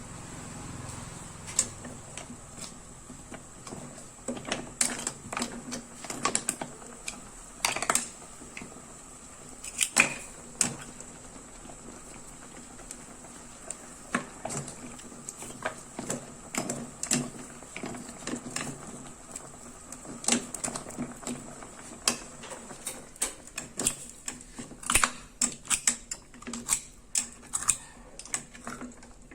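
Irregular sharp clicks and taps of hard objects knocking together, some coming in quick clusters, over a faint steady hum.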